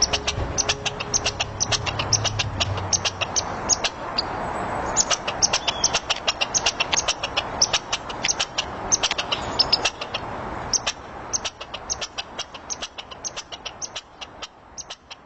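A wild animal chorus of short, high chirps, several a second, over a steady hiss; it thins out and fades over the last few seconds.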